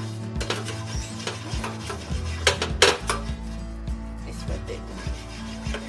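Hand rubbing oil over a stainless-steel perforated steamer plate, greasing it so the momos won't stick: a soft scraping on the metal with a few sharp knocks, two close together about two and a half seconds in.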